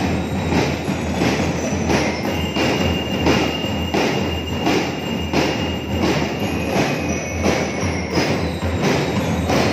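A school drum corps playing: snare and bass drums beating a steady march rhythm of about three beats a second.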